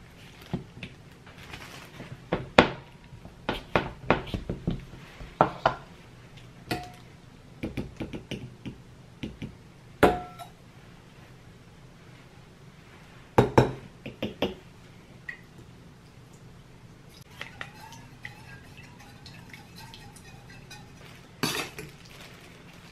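Scattered clinks and taps of kitchen utensils as sugar is measured into a stainless steel mixing bowl: chopsticks, a wooden spoon and a metal measuring spoon knocking against the bowl and the counter. A few louder clinks ring briefly, around ten seconds in and again a few seconds later.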